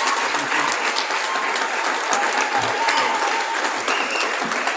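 Large audience applauding steadily, with a few voices calling out over the clapping.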